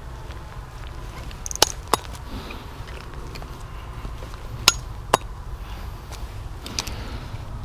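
Four sharp clicks in two quick pairs, about three seconds apart, over a steady low rumble.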